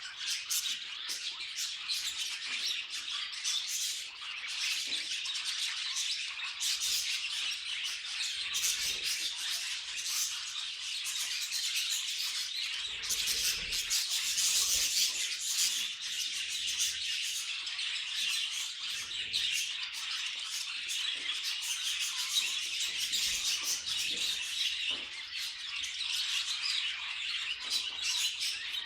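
Budgies chattering and chirping continuously, with many rapid warbles, clicks and occasional squawks overlapping, as from one or more pet budgerigars.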